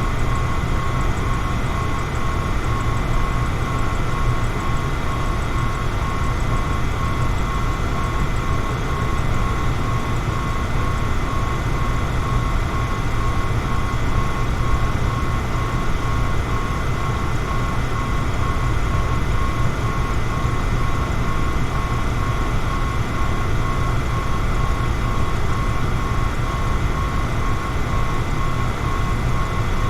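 Electric fan running steadily: an even airy hum, heaviest in the low end, with a faint high-pitched whine held throughout.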